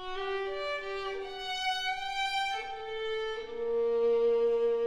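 Chamber ensemble of flute, clarinet, bass clarinet and string quartet playing slow, held notes that overlap and change one at a time, with the violin most prominent. About three and a half seconds in a lower sustained note enters and the music grows louder.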